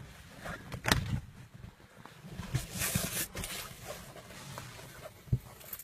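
Handling noise from a handheld camera moving about a car's interior: a few sharp knocks and a brief rustle, with no engine running.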